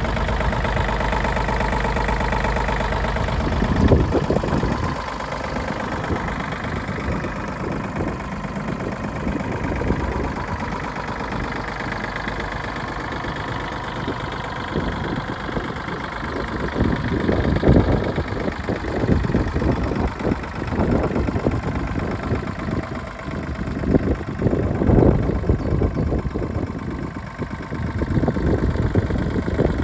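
Iseki Sial 15 compact tractor's diesel engine idling steadily. From about four seconds in, irregular low rumbling surges come and go over the idle.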